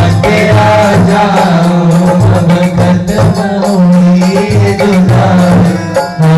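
A boy singing a devotional song into a microphone over amplified instrumental accompaniment with a steady low pulse.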